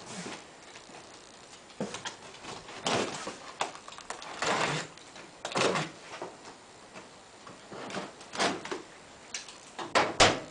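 Parts being handled and pulled out of a cardboard box: irregular bursts of rustling and scraping packaging with a few light knocks.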